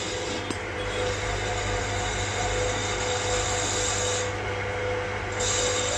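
Steady mechanical running noise: an even hiss over a low hum, with a faint steady tone through it. The highest part of the hiss drops out for about a second a little past the middle.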